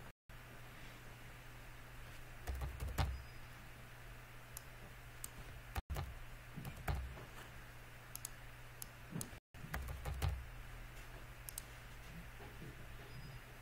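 Computer keyboard typing in short spurts of a few key presses at a time, over a low steady hum.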